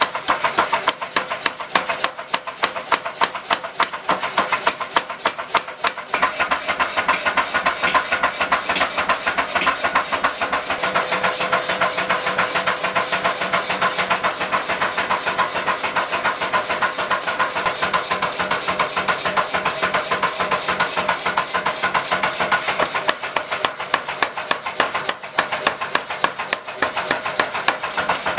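Power hammer pounding a red-hot kanna (Japanese plane) blade blank, several rapid blows a second, over the steady running of the machine. This is the hot forging of the blade.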